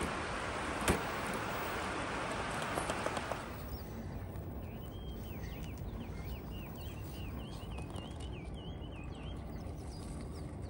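For the first few seconds, a steady rush of flowing stream water and wind on the microphone, with a single sharp click about a second in. After a cut it is quieter, and a small bird sings a quick series of repeated high chirps for about four seconds.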